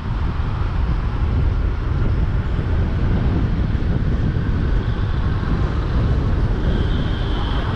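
Car driving through city traffic: steady road noise with a heavy low rumble. A faint high tone, like a distant horn, sounds near the end.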